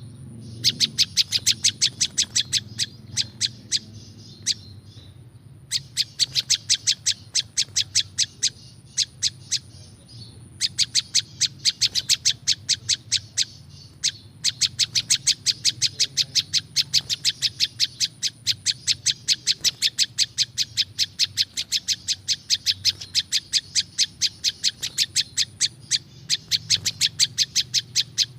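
Prenjak lumut, a small Indonesian songbird, calling in long runs of rapid, sharp ticking notes, about six a second, with short breaks between runs. A thin steady high tone runs underneath.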